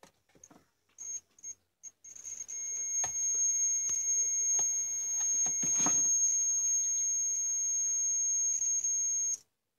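DT9205A digital multimeter's continuity buzzer sounding while its probes are on a CFL tube's filament pins: a high steady beep that stutters on and off for the first two seconds, then holds unbroken for about seven seconds before cutting off suddenly. A few light clicks come from handling the probe against the pins. The held beep, with the meter reading about 10 ohms, shows continuity: the filament is unbroken.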